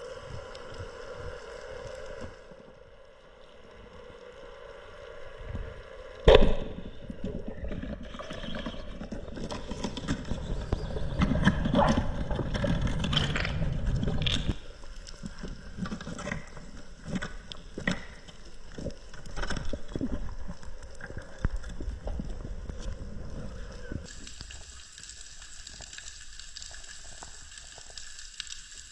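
Water sloshing and gurgling with scattered knocks, including one sharp knock about six seconds in. Near the end it gives way to a steady high hiss.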